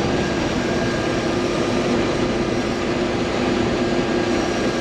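Old International Harvester Axial-Flow combine running steadily under load while cutting and threshing wheat, a constant machine noise with a steady hum in it.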